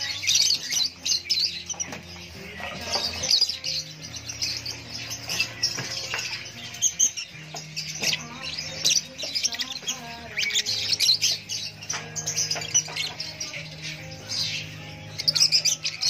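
Flock of caged Fischer's lovebirds chattering: a dense, continuous run of high, rapid chirps and squawks.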